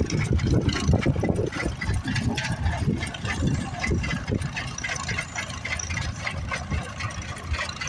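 Tractor engine idling, with wind buffeting the microphone.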